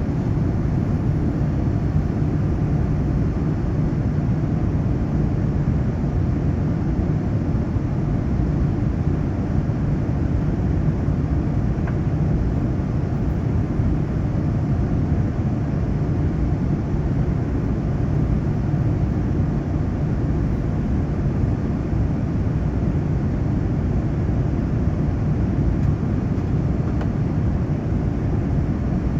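Steady cabin noise inside a Boeing 787 airliner: an even, low rumble of engines and airflow with no change in level.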